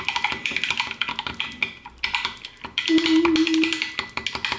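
A stirrer rattling and clinking quickly against the inside of a tall drinking glass, stirring liquid caramel into a little milk to dissolve it, with a brief low tone about three seconds in.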